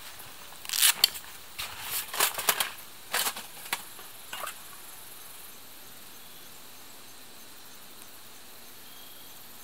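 Stainless steel nesting cookware clinking and scraping as the pieces are pulled from a canvas backpack and separated, with fabric rustle. There are a handful of short clatters in the first half, then only a faint steady hiss.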